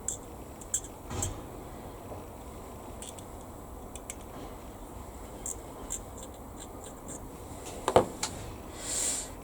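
Light clicks, taps and rubbing from handling small plastic model-kit parts and hobby tools, with one sharper knock about eight seconds in.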